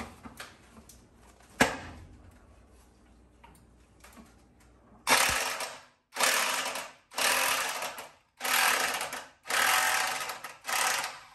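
Electric impact wrench hammering in six short bursts, pulsed on and off, to loosen a water heater's tight hex magnesium anode rod. A single knock comes before the bursts.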